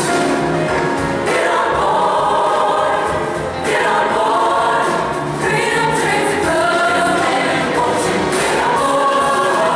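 Large youth choir singing together in a gospel style, many voices blended in harmony.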